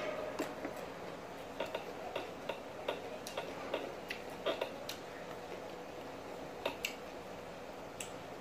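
Close-up eating sounds: short, irregular clicks and smacks of chewing and lip-smacking as food is eaten by hand, thickest in the first five seconds and sparser after. A faint steady hum sits underneath.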